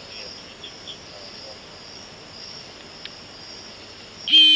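Crickets chirping steadily in a high, pulsing chorus. Near the end a loud electronic tone cuts in for about half a second and stops suddenly.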